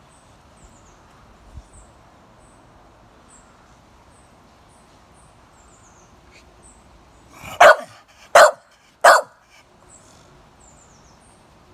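Staffordshire bull terrier barking three times in quick succession, the barks under a second apart, with faint bird chirps in the background.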